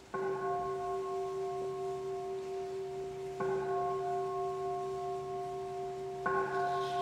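Buddhist temple bowl bell struck three times, about three seconds apart, each stroke ringing on in a steady, overlapping hum of several tones. The three strokes open the chanted liturgy.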